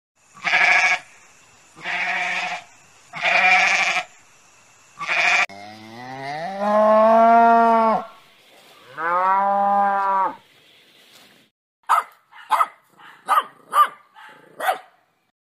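Livestock bleating: four harsh calls, then two long drawn-out calls that rise at the start. A run of short sharp calls follows near the end.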